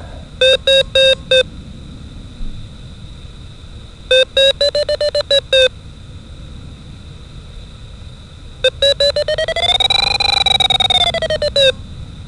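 A DIY Arduino sailplane variometer beeping through a loudspeaker. There are three groups of beeps: four short beeps near the start, a faster run a little higher in pitch in the middle, and near the end a long, rapid run that rises in pitch and falls back. The vario sounds only when the glider climbs, so the beeps signal lift, faster and higher in pitch for a stronger climb.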